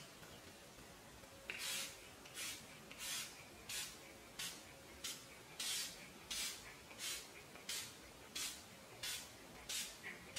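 Urban Decay All Nighter setting spray misted from its pump bottle: about a dozen short hissing sprays in a steady rhythm, roughly one and a half a second, starting about a second and a half in.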